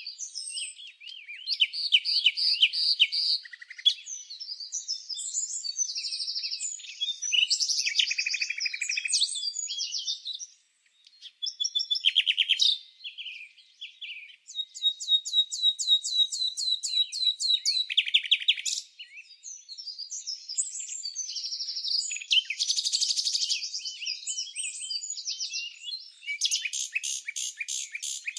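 Small songbirds chirping and singing, several calls overlapping: quick high chirps and whistles with fast buzzy trills, a long one from about 14 to 19 seconds and another near the end.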